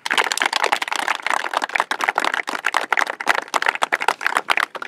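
A seated group of people applauding: many quick, overlapping hand claps that thin out near the end.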